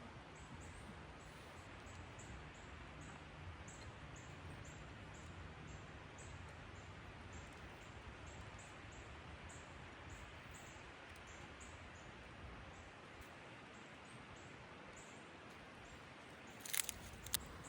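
Faint steady rush of flowing river water, with a faint high ticking about twice a second. Near the end come two or three sharp knocks.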